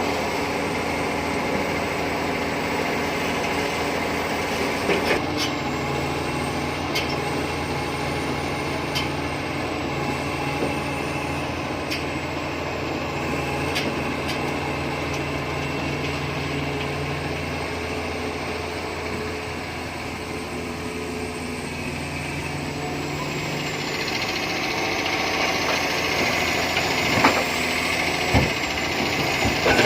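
Heavy diesel engines of a Komatsu PC400 excavator and a dump truck running steadily, with a few short sharp knocks scattered through and several more near the end.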